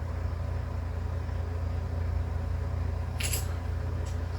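Steady low background hum. About three seconds in there is a brief soft rustle, and a fainter one just after, as small plastic parts are handled.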